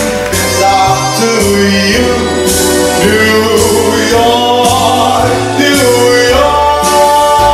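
Music with a singing voice over sustained bass notes and a steady beat of about one accent a second.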